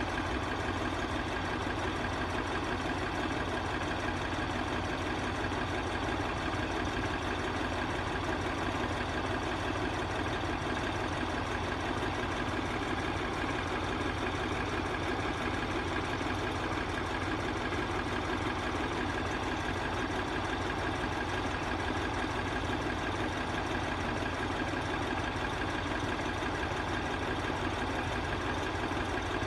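An engine idling steadily with a fast low pulse and a thin steady tone above it, unchanging throughout.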